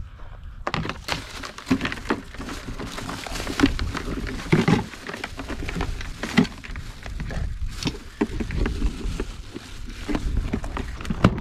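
Irregular clattering and scraping of live blue crabs and a dip net in a plastic cooler, claws and shells knocking on the plastic, over a low rumble.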